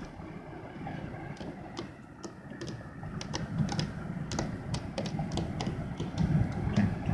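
Raindrops in a thunderstorm ticking irregularly on a hard surface, coming more often after the first second or so, over a low rumble that swells near the end.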